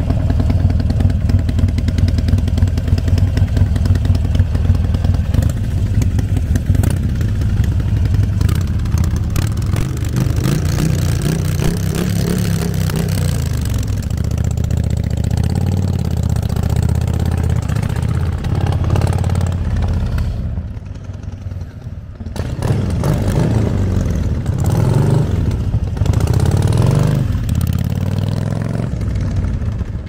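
Harley-Davidson Sportster Forty-Eight 1200's air-cooled V-twin, idling steadily at first, then revving as it pulls away, the pitch rising and falling. About twenty seconds in it drops off as the bike moves away, then comes back louder with several rising revs as it accelerates back toward the listener.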